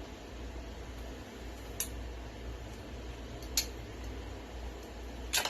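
Three short, sharp snips about two seconds apart, the last one loudest: scissors cutting through blue crab shell. A steady low hum runs underneath.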